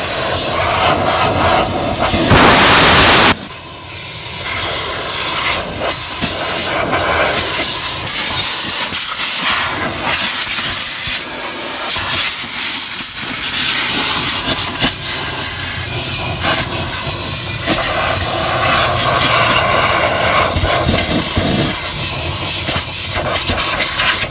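Compressed-air blow gun hissing in blasts of varying strength, the strongest a little over two seconds in, as it blows dust out of a truck's A/C blower fan housing. The dust clogging the housing is what made the blower vibrate.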